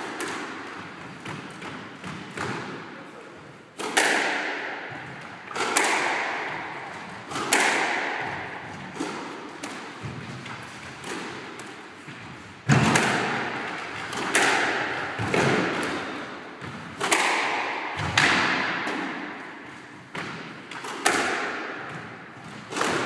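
Squash rally: the ball is struck by rackets and smacks off the court walls every one to two seconds, about a dozen sharp hits, each ringing out in the court's echo.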